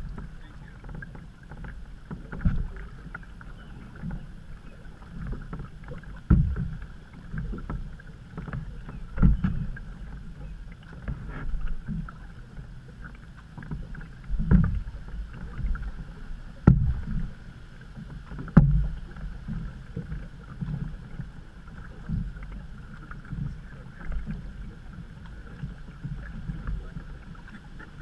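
Canoe being paddled along a creek: paddle strokes and water sloshing against the hull, swelling about every two seconds, with a couple of sharp knocks in the second half.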